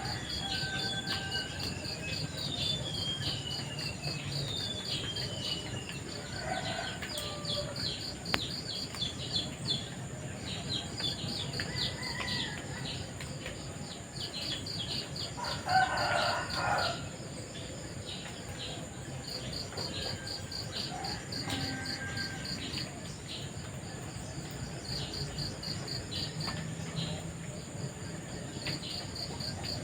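Morning forest ambience: insects trilling in rapid pulses, with birds whistling descending notes in the first few seconds. A rooster crows once about halfway through, the loudest sound.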